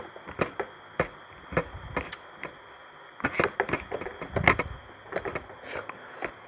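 Close-miked eating sounds: people chewing squid adobo and rice eaten by hand, irregular mouth smacks and small clicks several times a second, loudest about four and a half seconds in.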